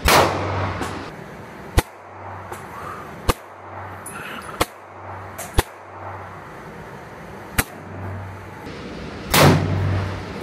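Sipahi bullpup 12-gauge shotgun firing two heavy blasts, about nine seconds apart, each ringing out in the echo of an indoor range. Five sharper, quieter gunshots crack in between.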